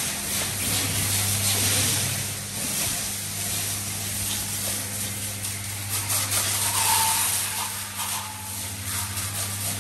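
High-pressure water jet spraying against a boat's fibreglass hull, a steady hiss that swells and eases as the jet moves, over a steady low hum.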